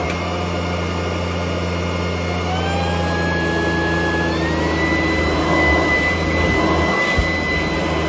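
Ultenic U12 Vesla cordless stick vacuum running on carpet with its motorised brush head: a steady low hum under a high motor whine. The whine rises in pitch about two and a half seconds in and steps up again a little after four seconds, as the vacuum is switched up to a higher power setting. A light bump comes near the end.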